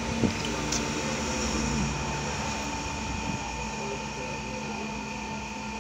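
Steady mechanical hum with a constant high whine, and a light click of a fork against the plate in the first second.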